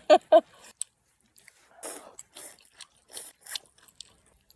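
Close-up eating sounds: a person chewing a mouthful of noodles, in short, irregular bursts.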